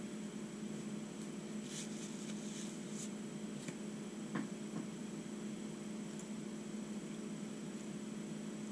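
A person chewing breadsticks: faint mouth smacks and small clicks, a cluster a couple of seconds in and one sharper tick about halfway, over a steady low electrical hum.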